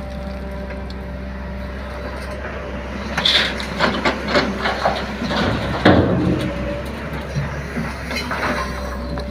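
JCB 3DX backhoe loader's diesel engine running steadily. From about three seconds in, irregular knocks and clatter of the machine working come in on top of it.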